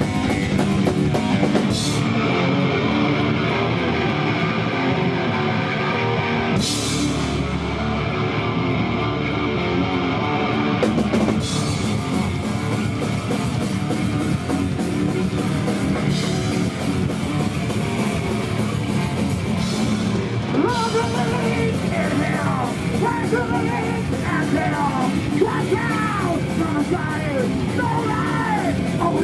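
Thrash metal band playing live at full volume: distorted electric guitars, bass and a drum kit, with crash cymbal accents every few seconds. About two-thirds of the way through, a high lead line with bending pitch comes in over the riff.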